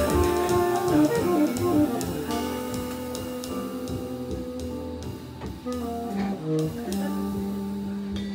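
Live jazz combo playing, with drum-kit cymbal strokes over pitched instrument lines that PANN takes for guitar. The music gets quieter and the cymbals thin out, settling on one held low note near the end.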